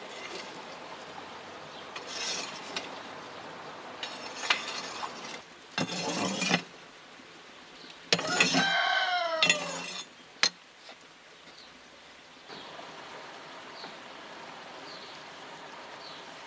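A rooster crows about eight seconds in, a loud call whose pitch falls at its end. Around it, a metal rake scrapes and clinks now and then as it drags glowing embers across the floor of a wood-fired stone oven.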